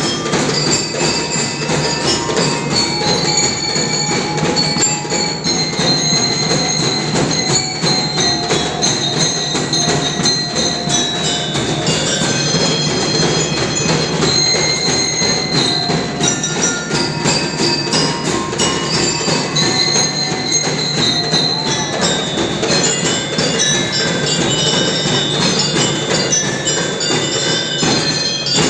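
Drum and lyre band playing: bell lyres ring out a melody of high held notes over steady, unbroken drumming.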